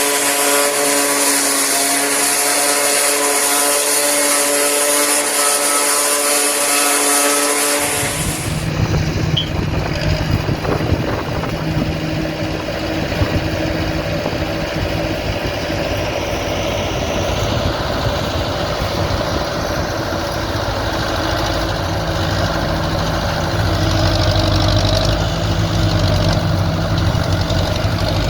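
Dania D5500 harvester and Zetor 5748 tractor at work chopping corn: a steady high-pitched machine whine over hissing, then, about eight seconds in, an abrupt change to a lower, steady engine drone.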